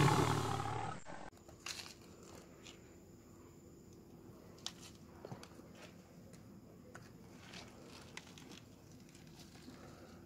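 A roar sound effect under a studio-style logo, fading and cutting off about a second in; after it only faint rustling and scattered small clicks over a low steady hum.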